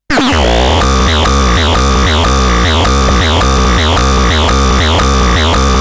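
Synthesizer playing a looping electronic pattern that starts abruptly: a low bass stepping between two notes under repeated falling, sweeping tones about twice a second.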